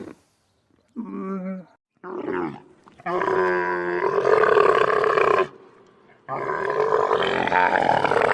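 Camels moaning and groaning: two short calls, then two long, rough, rasping groans of about two and a half seconds each, with silent gaps between them.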